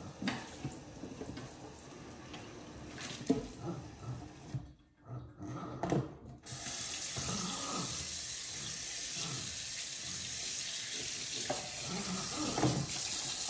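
Kitchen sink tap running, with a few knocks and softer water sounds early on, then a loud steady stream of water from about halfway through.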